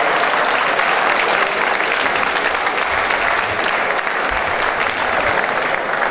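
Audience applauding, a dense, steady clapping that eases off slightly toward the end.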